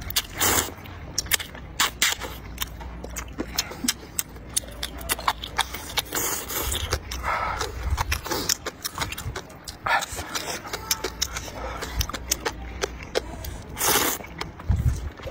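Person slurping rice noodles and broth loudly, with two long slurps about half a second in and near the end. Between them come wet chewing and mouth clicks.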